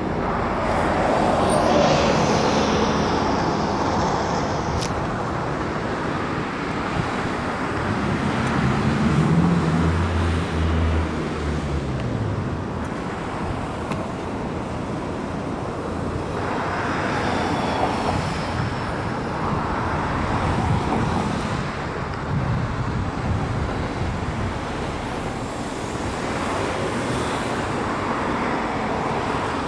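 City road traffic: a steady rush of passing cars that swells as vehicles go by, with a low engine drone from a heavier vehicle about ten seconds in.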